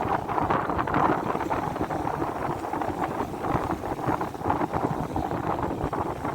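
Wind buffeting the microphone in gusts over the steady wash of the sea.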